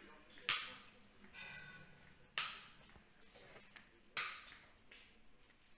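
Three sharp clicks at an even pace, about two seconds apart, each fading away quickly.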